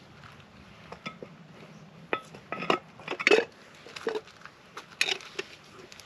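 Camping breakfast gear being handled: irregular small clinks, knocks and rustles of a thermos, cups and food containers.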